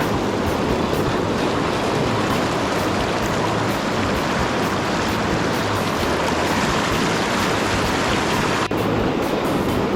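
Steady rush of a fast-flowing river current, with a brief break about nine seconds in.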